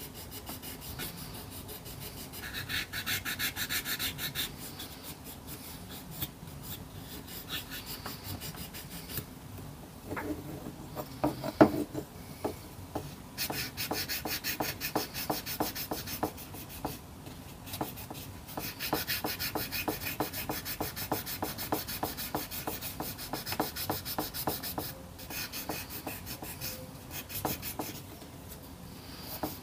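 Wet-and-dry abrasive paper (1200 grit) rubbed by hand over small undercoated die-cast metal toy-truck parts, flatting the primer. It goes in runs of quick back-and-forth strokes with short pauses, and there is one sharp knock about twelve seconds in.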